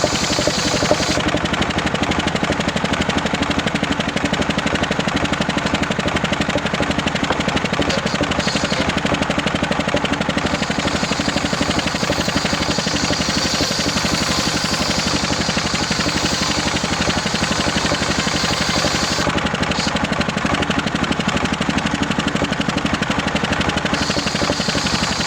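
Homemade circular saw rig running steadily, with a fast even pulsing from its drive, as it saws waru wood into rafter blanks. The high hiss of the blade comes and goes a few times, about a second in and again near the end.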